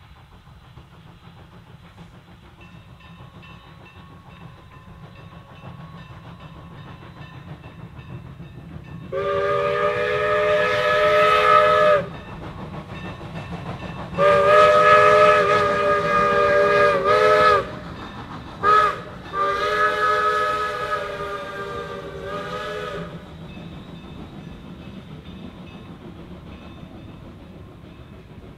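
Steam locomotive's chime whistle blowing the grade-crossing signal, long, long, short, long, over the low rumble of the passing train.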